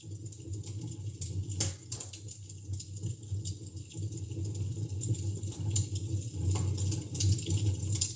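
Wood fire in a fireplace crackling, with irregular sharp pops and snaps over a steady low rumble of the flames; one sharper pop comes about one and a half seconds in.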